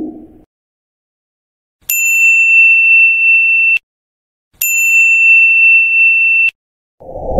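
Two identical bell-like ding sound effects. Each is a single high tone that starts sharply, holds steady for about two seconds and cuts off abruptly, the first about two seconds in and the second just past the middle. A low whoosh fades out at the start, and another begins near the end.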